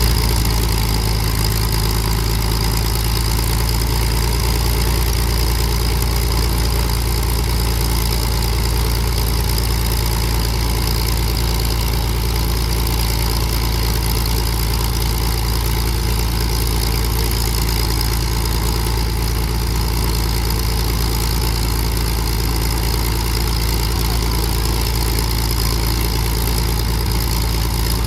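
De Havilland Mosquito's twin Rolls-Royce Merlin V12 engines idling steadily during a ground run.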